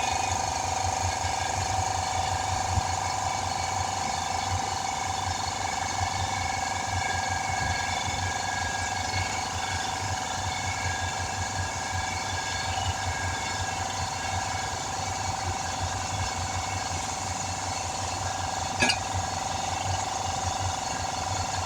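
Portable air compressor running steadily, a fast low chugging with a steady whine over it. The owner thinks its bearings are about gone. A brief click sounds near the end.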